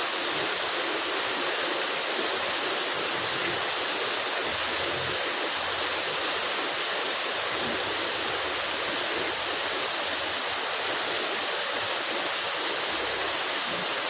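Heavy rain falling steadily, an even hiss with no change in level.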